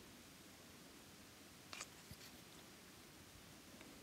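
Near silence, with a faint click of hard plastic toy parts being handled about two seconds in.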